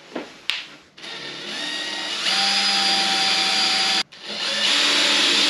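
Cordless drill with a small bit pre-drilling pilot holes in a painted wooden bed frame: the motor whines for about three seconds and speeds up partway through, stops for a moment, then runs again for the second hole.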